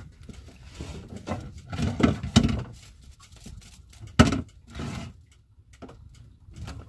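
Knocks and bumps against a small wooden boat as a fisherman works his handline: a cluster of thuds about two seconds in and one sharp knock just after four seconds.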